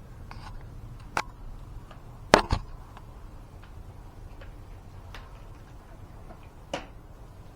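A few sharp metal clicks and knocks of small hardware and tools being handled while a small tray is fitted to a floor jack, the loudest a quick pair about two and a half seconds in, over a faint steady low hum.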